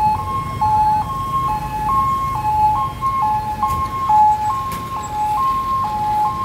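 Fire truck's two-tone hi-lo siren, switching between a high and a low note about every half second, over the low rumble of passing traffic.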